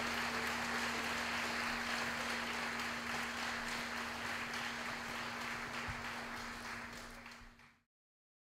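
Audience applause, a dense even clapping over a low steady tone, fading and cutting off completely about three-quarters of the way through.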